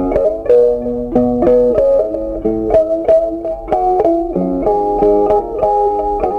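Background music: a plucked guitar melody, its notes changing a few times a second.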